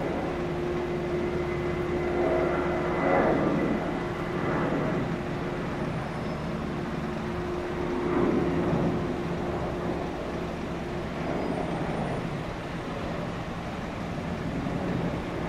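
Jet airliner engines running at an airport: a steady whine over a low rumble, swelling a little now and then.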